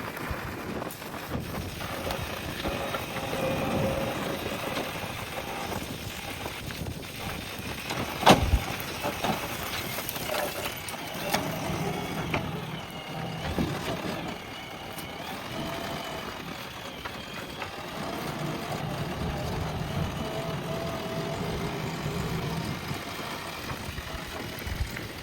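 JCB backhoe loader's diesel engine running under working load, its pitch rising and falling as the hydraulics work. A single sharp knock comes about eight seconds in.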